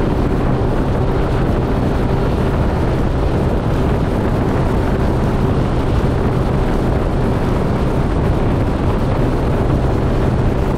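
Bass boat's 150-horsepower outboard motor running steadily at top speed, about 36 mph with the motor trimmed up, heard as a steady low engine tone under heavy wind and the rush of water past the hull.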